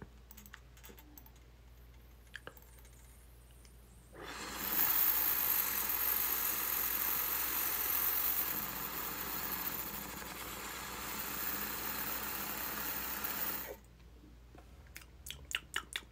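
A long draw through a water dab rig, the water bubbling steadily for about nine seconds, starting about four seconds in and stopping abruptly.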